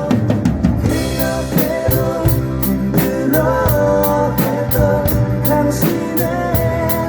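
Drum kit played along to a recorded Christian worship song with a singing voice and guitar, cymbals struck in a steady regular beat.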